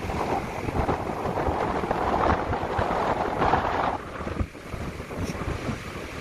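Wind buffeting the microphone over the wash of the sea, in uneven gusts, easing a little about four seconds in.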